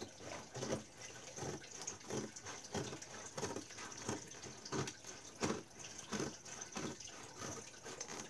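Scissors snipping through a cardboard box and its clear plastic window, in a steady run of short sharp cuts about two to three a second.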